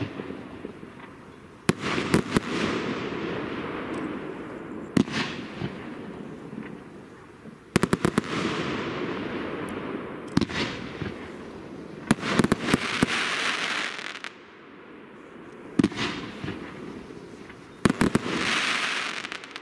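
Tropic Butterfly TB301 F3 firework going off: a sharp bang, or a quick cluster of bangs, every two to three seconds as shots burst in the sky, each trailing off in a fading hiss.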